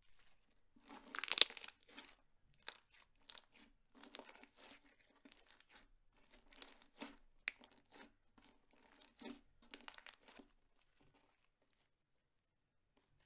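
Clear slime being squished and stretched by hand, giving a string of irregular sticky crackles and pops that stop near the end.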